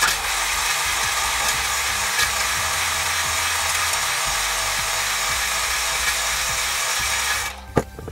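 Electric drill spinning a twisted-wire brush inside the cylinder bore of a Briggs & Stratton engine block, a steady scrubbing whir as the bore is cleaned. The drill stops shortly before the end, followed by a couple of sharp clicks.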